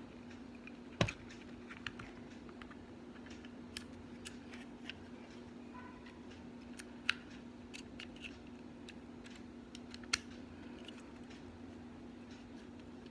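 Light scattered clicks and taps of small metal parts and pins being worked into the polymer frame of a Glock 17 Gen 4 pistol during reassembly, a handful of sharper clicks spread through, over a steady low hum.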